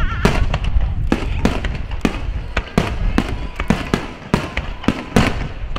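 Aerial firework shells bursting in rapid succession, about three or four sharp bangs a second, over a continuous low rumble.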